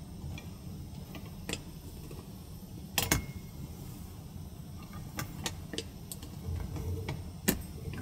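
Scattered sharp clicks and knocks, the loudest a double click about three seconds in and another near the end, over a steady low rumble.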